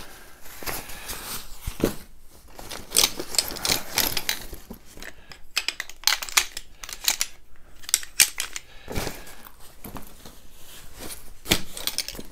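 Aluminium poles of a folding backpacking chair's shock-corded frame clinking and rattling against each other as they are handled, with rustling of the nylon stuff sack. The clinks are irregular and scattered, several in quick runs.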